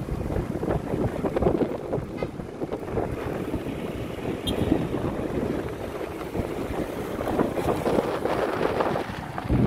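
Wind buffeting the microphone of a moving motorcycle, over the low running noise of the motorcycle and its tyres on the road.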